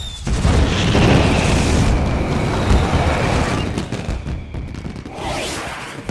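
Fireworks going off: a long spell of booming, rumbling blasts that starts just after the beginning and dies away around the fourth second, with another smaller burst near the end.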